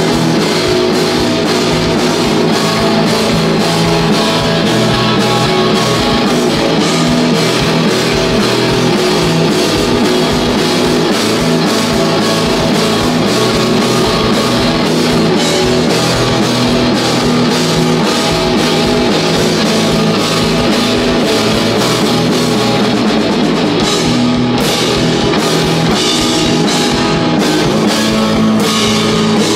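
A rock band playing live and loud: electric guitar, electric bass and a Ludwig drum kit, with a steady stream of drum hits.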